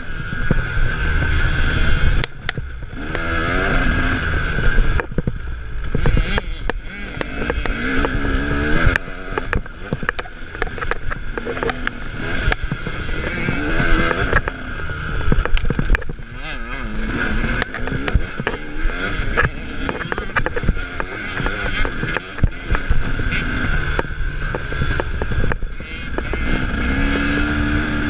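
KTM 300 two-stroke dirt bike engine revving up and down as the bike is ridden along a dirt trail, heard close from the handlebars with wind noise. Frequent irregular knocks sound over the engine.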